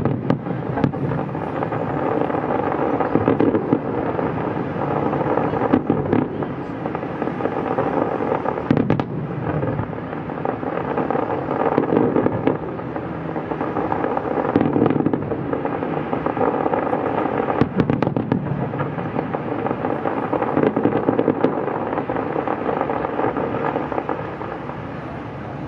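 Large fireworks display: a dense crackle of many small reports, with louder shell bangs every few seconds, easing off slightly near the end.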